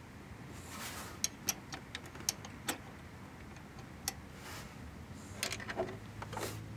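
Scattered light clicks and clinks of small metal parts being handled as the massage chair's backrest lever and pin are fitted: a few sharp clicks in the first three seconds, one around four seconds in, and a short cluster near the end.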